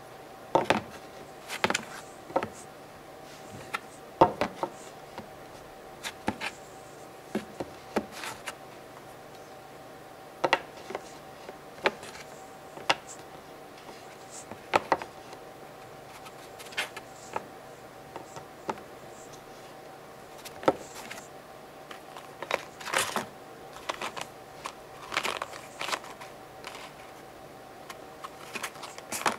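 Irregular light taps, clicks and scrapes of small objects, a small cardboard box and a short stick, being set down, slid along a tabletop and knocked against a cardboard wall by hand, some taps sharper and louder than others.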